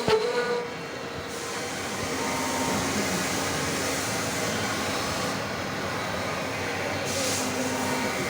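High-feed face mill with six carbide inserts cutting S355 steel at maximum feed: a steady cutting noise with a few held tones, easing a little about a second in and then running level.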